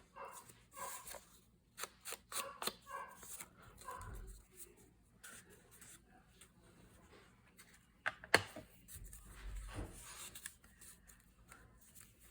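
Paper being handled and rubbed with an ink applicator as its edges are inked: a run of short brushing, scraping and tapping sounds, with one sharp click about eight seconds in.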